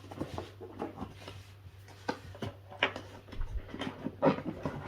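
Light clicks, taps and rustling of a small perfume bottle and its cardboard compartment being handled as the bottle, stuck crooked, is worked out of the advent calendar.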